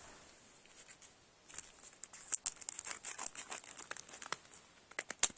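A pack of sticker sheets being opened by hand, its wrapper crinkling and tearing in many short, sharp crackles that start about a second and a half in.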